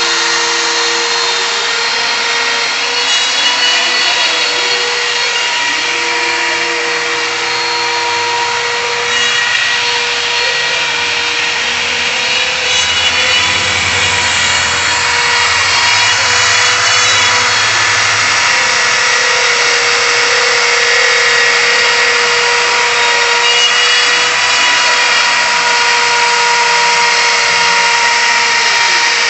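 DeWalt router running at speed as a CNC spindle, its bit cutting a groove into a clamped board: a steady high motor whine over the rasp of the cut.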